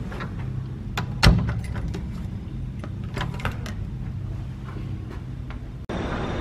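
Hotel room door swung shut, latching with one sharp loud knock about a second in, with lighter clicks of the knob and key fob around it, over a low steady hum. Near the end the sound cuts suddenly to a busier room background.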